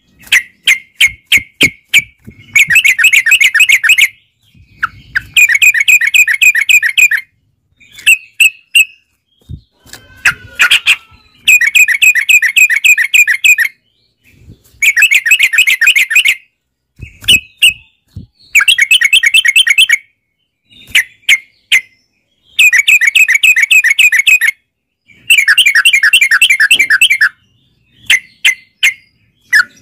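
Yellow-vented bulbul (trucukan) singing loudly. Rapid chattering trills of about two seconds each alternate with short, sharp single notes, in the fast repeated 'ropel' style.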